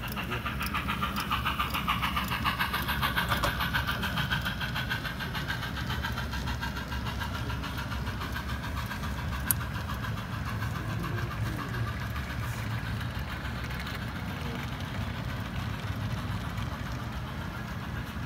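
HO-scale model passenger train rolling past on the track: a rapid, steady clicking of wheels over the rails over a low rumble. It is loudest in the first few seconds as the steam locomotive goes by, with a single sharp click about halfway through.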